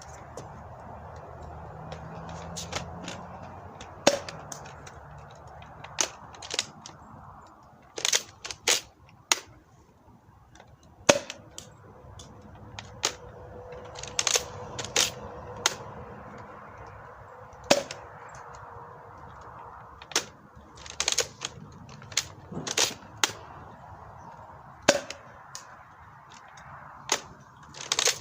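Nerf Rival Jupiter bolt-action spring blaster being cocked and fired repeatedly, giving sharp snaps and clicks at irregular intervals, several in quick clusters.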